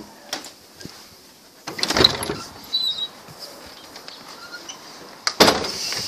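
A sliding glass door running in its track: two short noisy slides, about two seconds in and near the end, with a few small clicks between them.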